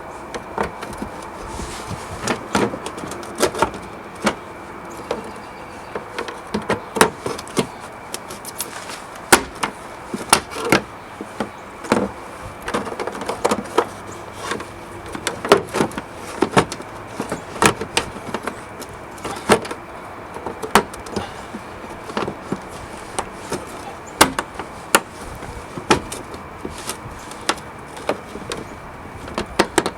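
Irregular clicks, knocks and light clatter of a car's brake light assembly and trim being fitted back into place by hand, scattered unevenly throughout.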